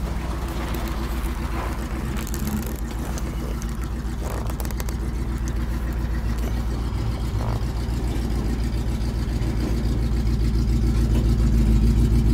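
Demolition derby car engine running steadily at low speed, heard from inside the stripped car, growing slowly louder toward the end.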